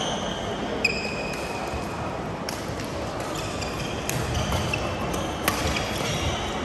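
Badminton rally: sharp racket strikes on a shuttlecock, a few seconds apart, with brief high squeaks of court shoes on the mat between them.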